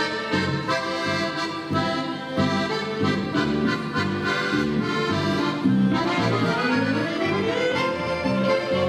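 Instrumental background music led by an accordion playing a melody. About two-thirds of the way through, one line slides up in pitch and holds a long note.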